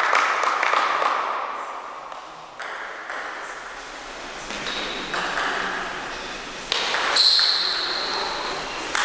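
Table tennis ball being struck by bats and bouncing on the table in a doubles rally. A few sharp, irregularly spaced clicks begin about two and a half seconds in, each ringing in the echo of a large gym hall.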